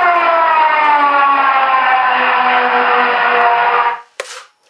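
Stuka dive-bomber sound effect played by a ShockWave sound module through the model P-51's two 4-inch Visaton speakers: a loud pitched wail falling slowly in pitch, which cuts off about four seconds in and is followed by a short click.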